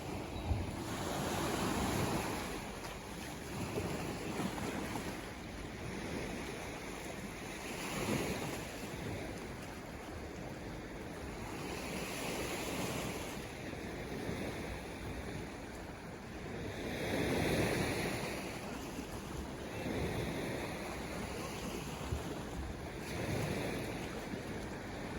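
Ocean waves breaking and washing in, swelling and ebbing every few seconds. The biggest surge comes about two-thirds of the way through.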